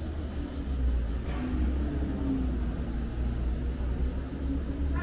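Low, steady rumble of passing street traffic, with a faint engine-like hum in the middle.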